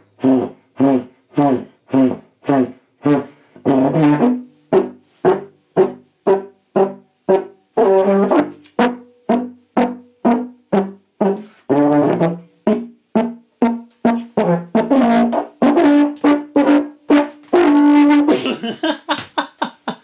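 A Tenorhorn, a rotary-valve brass tenor horn, played by a beginner: a long run of short tongued notes, about two a second, moving between a few low pitches. Near the end the notes turn into longer held tones.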